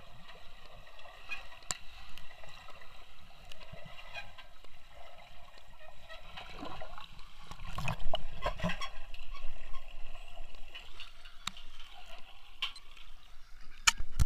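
Freestyle swimming strokes heard from underwater: muffled splashing and bubbling with scattered sharp clicks, louder about eight seconds in.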